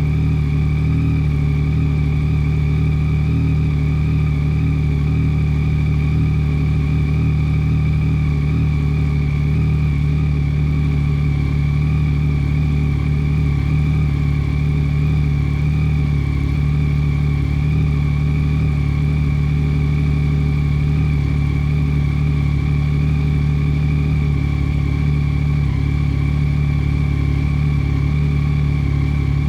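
2022 Yamaha Tracer 9 GT's 890 cc inline three-cylinder engine idling steadily through an unbaffled Akrapovic full exhaust, warming up after a cold start.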